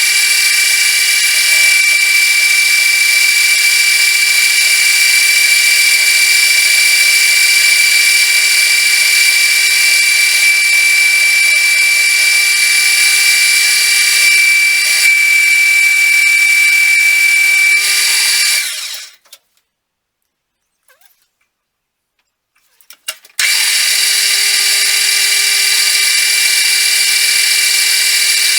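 Metal lathe running with a steady high whine while machining round stock. The sound cuts out about two-thirds of the way through, stays silent for about four seconds, then the same whine resumes.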